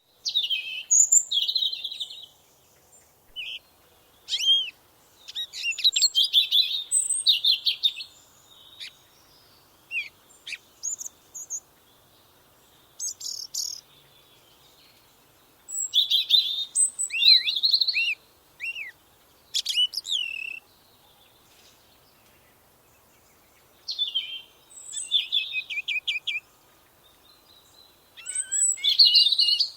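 Songbirds singing in short phrases of chirps, rapid trills and falling whistles, in bouts of a few seconds with pauses between.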